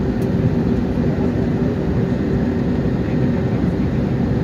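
Passenger airliner heard from inside the cabin: a steady, low engine and air roar with a faint constant hum, unbroken throughout.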